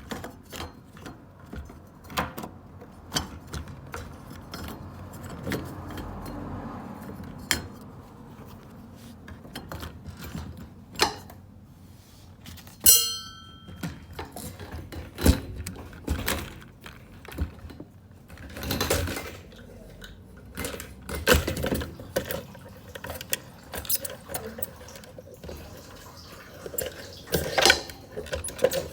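Irregular metal clinks, clicks and knocks, like metal tools and parts being handled and set down. One ringing metallic clink comes about halfway through, and there are clusters of heavier knocks later on.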